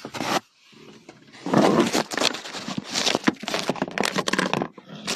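Crackling, scraping handling noise from fingers rubbing on a phone close to its microphone, in a dense run of irregular bursts from about a second and a half in.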